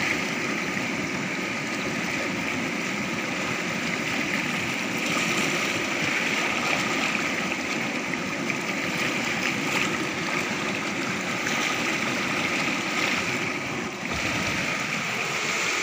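Fast, churning water rushing past a rocky bank: a steady, even rushing noise.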